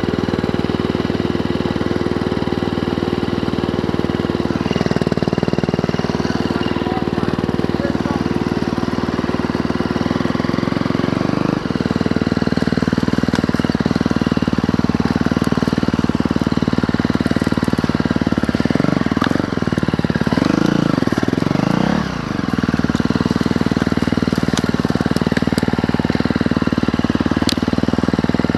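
Dirt bike engine running as the bike is ridden along a trail, its revs shifting with the throttle. There is a brief drop about twelve seconds in, and a few quick rises and falls in pitch about two-thirds of the way through.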